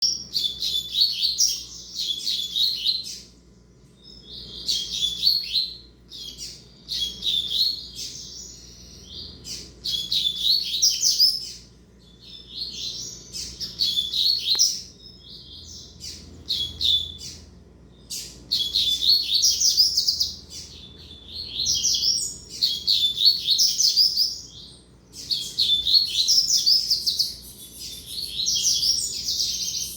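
Coleiro (double-collared seedeater) singing its fast, twittering song in repeated phrases of a second or two, with short pauses between them.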